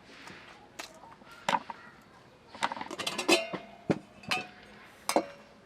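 Hard objects clinking and knocking together: scattered sharp clinks, some with a brief ring, and a short clatter about three seconds in.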